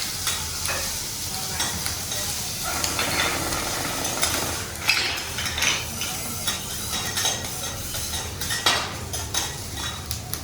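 Food sizzling on a hot teppanyaki griddle while metal spatulas stir it, with repeated sharp scrapes and clinks of steel on the griddle plate.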